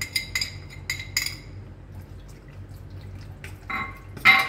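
Small glass bowl clinking against the rim of a stainless-steel pot several times as oil is poured from it onto raw chicken, followed by quieter handling of the chicken, and a loud ringing clank of the pot about four seconds in.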